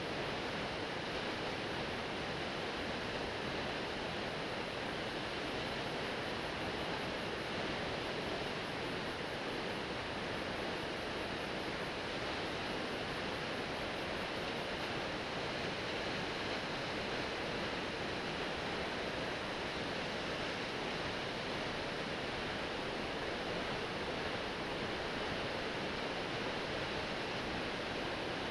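A 72 m plunge waterfall crashing steadily into its pool: a constant, even rush of falling water.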